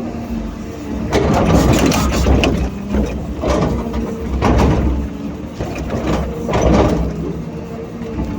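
Diesel engine of a hydraulic excavator running steadily at work, with three louder noisy surges of a second or so each as it digs and loads sand.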